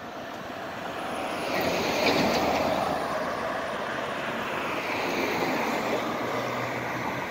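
A utility pickup truck drives past close by over the railroad crossing, its tyre and engine noise swelling about two seconds in and then easing off, with a car passing near the end.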